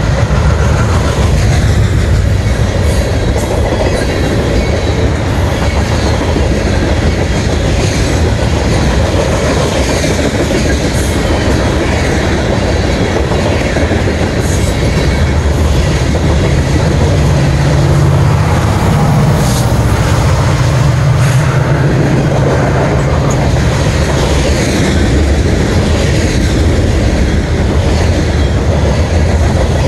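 A freight train's cars rolling past close by: steady wheel-on-rail rumble with the clickety-clack of wheels over rail joints. A low drone swells for several seconds past the middle.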